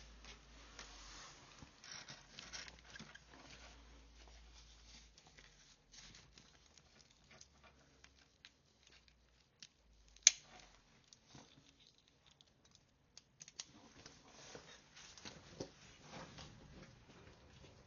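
Footsteps and clothing rustle picked up close by a lapel microphone while walking a dog, irregular and faint, with a single sharp click about ten seconds in.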